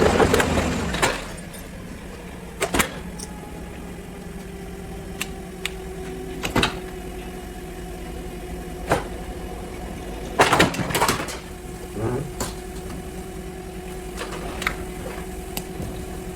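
An engine revving briefly and dying away at the start, then a steady mechanical hum broken by scattered sharp clicks and knocks, with a cluster of louder knocks about ten seconds in.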